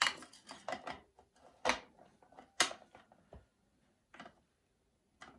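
Irregular clicks, knocks and scrapes of plastic water-filter housings being handled and fitted back in place during a cartridge change, with a few sharper knocks about a second apart.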